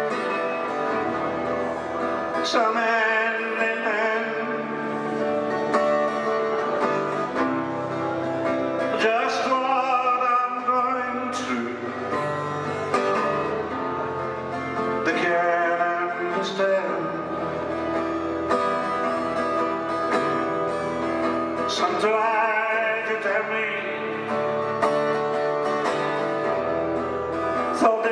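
A song: a voice singing over plucked acoustic guitar.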